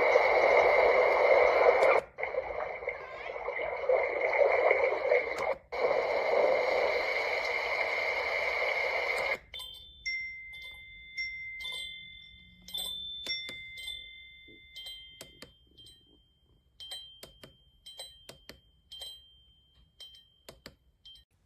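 Sunrise alarm clock's speaker giving a steady hiss with a faint high tone in it, broken twice and cut off suddenly after about nine seconds. A sparse run of clicks and short chime-like beeps follows and fades toward the end.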